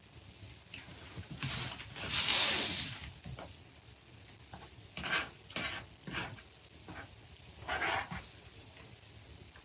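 A person eating tenshinhan (egg and thick sauce over rice) with a metal spoon: a long slurp about two seconds in, then shorter slurping and mouth sounds with light spoon taps against the bowl.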